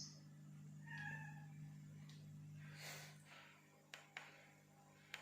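A cat meowing once, quietly, about a second in, over a steady low hum; a brief hiss follows near the three-second mark and two sharp clicks near the end.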